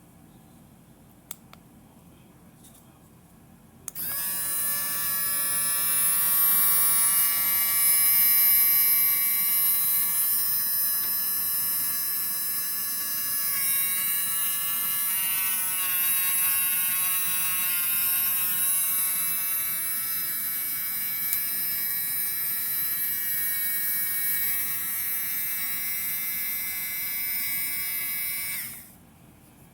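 HARDELL mini cordless 3.7 V rotary tool switched on and running: a high motor whine with a strong hiss. It starts abruptly about four seconds in, dips a little in pitch midway, then cuts off shortly before the end.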